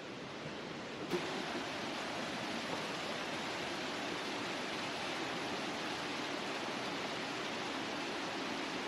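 Rocky mountain stream rushing over stones, a steady hiss of running water. A short click about a second in, after which the water is slightly louder.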